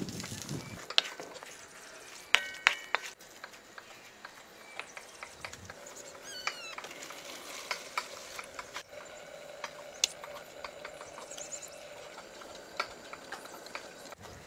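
Wooden spatula stirring minced beef in a metal wok, with scraping and scattered sharp taps; a cluster of taps about two and a half seconds in rings briefly. Partway through comes a short, high chirp.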